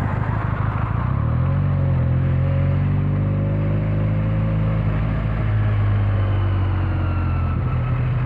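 Benelli 302's parallel-twin engine and exhaust running under way on a ride. The note changes about a second in, then slowly falls in pitch.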